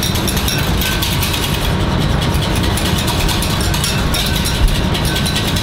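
Wire whisk beating egg yolks and a little water in a stainless-steel saucepan: a rapid run of clicking strokes of the wires against the pan, whipping up the base for a béarnaise, with one sharper knock near the end. A steady low hum lies underneath.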